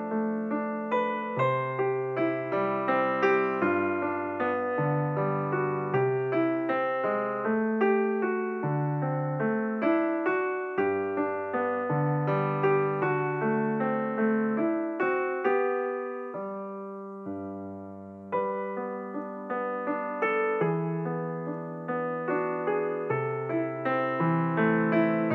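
Background music: solo piano playing a gentle melody over chords, one held chord dying away about two-thirds of the way through before the playing resumes.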